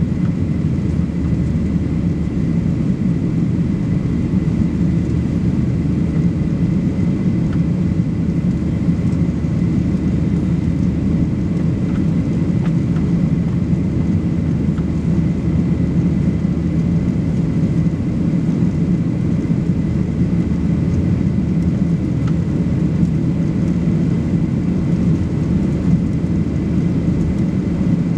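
Steady cabin roar of a Boeing 737 Next Generation airliner climbing after takeoff, heard from a window seat over the wing. It is the noise of its CFM56-7B turbofan engines and the rushing air outside: a deep rumble with a faint steady whine above it.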